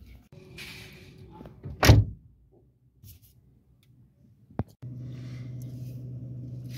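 A hoe chopping into dry soil, with one heavy thud about two seconds in. After a quiet gap and a click, a car engine idles with a steady low hum, heard from inside the cabin.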